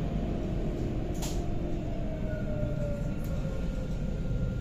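Electric tram running, heard from inside the car: a steady low rumble with a faint motor whine holding a high tone, and one sharp click about a second in.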